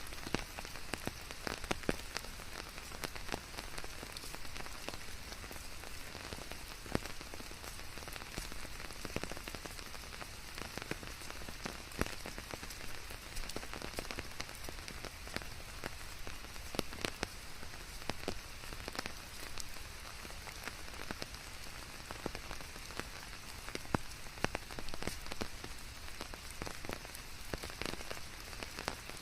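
Steady rain falling, an even hiss with many individual drops striking a hard surface close by, some of them sharp and distinct.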